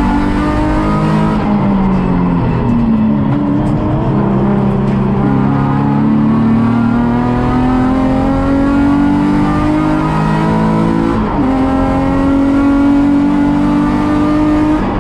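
Onboard sound of a Nissan 350Z race car's 3.5-litre V6 under race load. The engine note climbs steadily with rising revs, dips a few times in the first four seconds, and breaks sharply about eleven seconds in at a gear change before climbing again.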